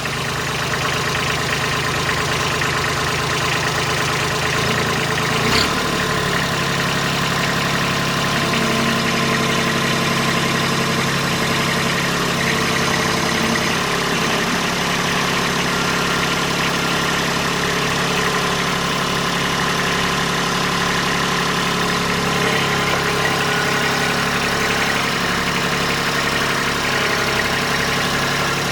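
Kubota B26 tractor-loader-backhoe's three-cylinder diesel engine idling steadily, freshly started.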